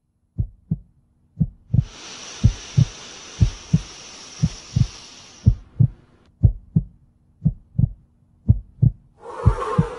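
Heartbeat sound effect: slow double thumps, about one pair a second. A high hiss sits under it from just under two seconds in to about five and a half seconds, and another rushing noise comes in near the end.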